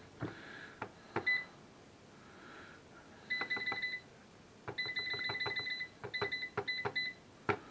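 Air fryer's touch control panel beeping as temperature and cook time are set: one beep about a second in, then two quick runs of repeated beeps as a button is held to scroll the setting, then a few single beeps. A few sharp clicks and knocks are mixed in.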